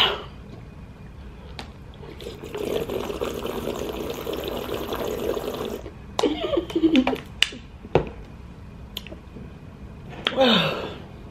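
Water gulped from a plastic Aquafina bottle for about three and a half seconds. A click follows as the bottle is capped, and short mouth and voice sounds come after.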